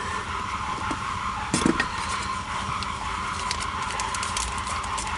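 Light clicks and taps of hand tools and small screws being handled on an engine's distributor, with a brief cluster of louder knocks about one and a half seconds in, over a steady hum.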